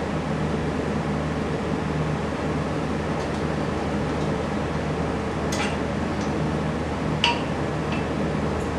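An engine stand's rotating head turning with a bare engine block on it, giving three sharp metallic clinks, the loudest about seven seconds in, over a steady background hum.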